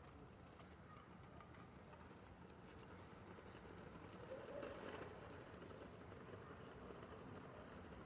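Faint outdoor courtyard ambience: a low steady background hum of the surrounding city with faint scattered ticks, swelling briefly about halfway through.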